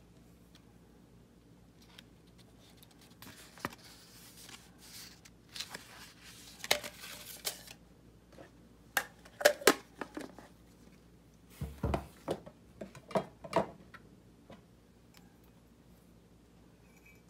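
Tableware being handled on a table: a few seconds of rustling plastic wrapping, then a run of sharp knocks and clicks as a clear tumbler and a ceramic mug are picked up and set down, with a dull thump a little after the loudest knocks.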